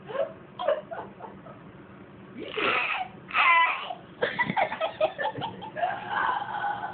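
A baby making throaty, creaky croaking sounds like the death rattle of the ghost in The Grudge, mixed with laughter. There are a few short sounds at first, then louder bursts from about halfway through.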